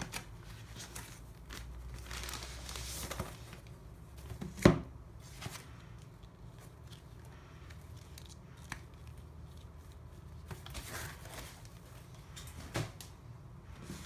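Rustling and crinkling of a plastic mailer bag and foam packing sheets being handled and pulled away from a product box, with a sharp knock about a third of the way in and a smaller one near the end.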